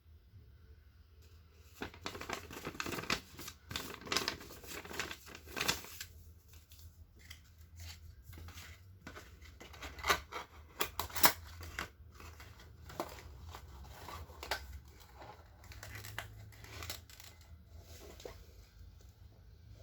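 Packaging being handled and opened: irregular rustling, crinkling and tearing sounds, with bursts of activity and a few sharper snips or cracks.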